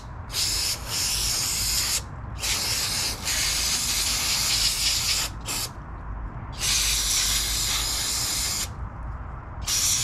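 Aerosol can of brake cleaner hissing out through a straw onto a lawn mower carburetor in several long bursts with short pauses between, washing grime off the outside of the carburetor.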